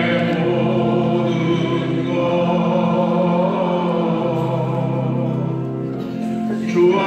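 Church choir singing a hymn in long held notes.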